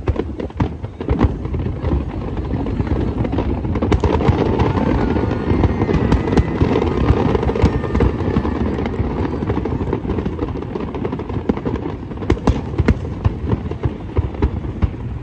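Fireworks display: a continuous stream of bangs and dense crackling, thickest through the middle, with sharper separate bangs toward the end.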